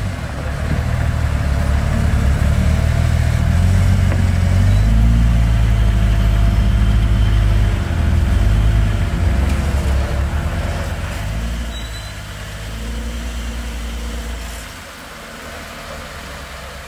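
Engine of an off-road vehicle crawling, its revs rising and falling in steps, then growing quieter near the end.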